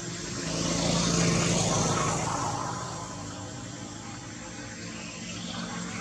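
An engine passing by, its sound swelling to a peak about a second in and then fading away, with a steady low hum under a rushing noise.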